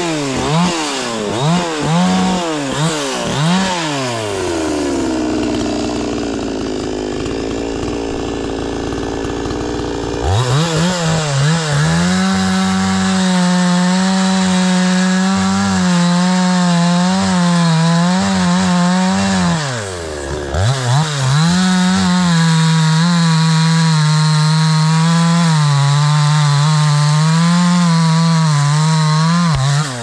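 Hyundai Turbo 650 two-stroke chainsaw. It is revved in quick blips, then drops to idle for several seconds. It is then held at full throttle while cutting into the base of a tree trunk, dips briefly with a few revs about twenty seconds in, and goes back to full throttle until it drops off at the end.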